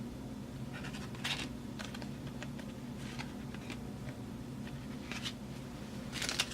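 Trading cards and pack wrappers being handled: a few light, scattered scratching clicks as cards slide against each other and are set down, over a steady low hum.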